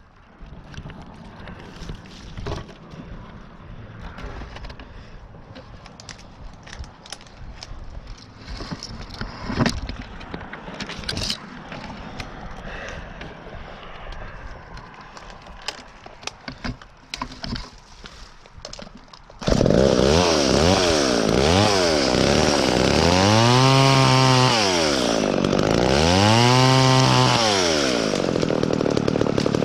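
Faint rustling and clicks, then about two-thirds of the way in an Echo chainsaw comes in suddenly and runs loud, revving up and falling back twice as it cuts through a dead branch.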